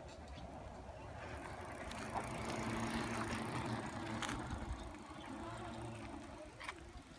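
Mountain bike rolling over pavement: a rushing tyre noise that swells a couple of seconds in and eases, with two sharp clicks.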